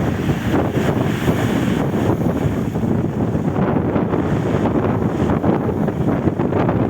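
Wind buffeting the microphone, a loud steady low rumble.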